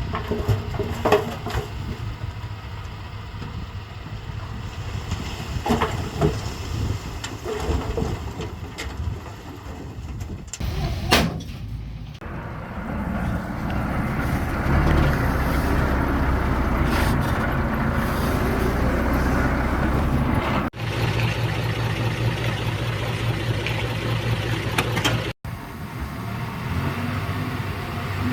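Heavy diesel engine of a bulldozer running and working, louder and steadier in the second half, with a few sharp knocks early on. The sound breaks off abruptly a few times, as at edits.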